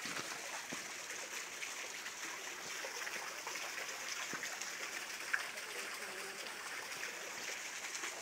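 Steady rushing of a mountain stream, with one sharp click about five seconds in.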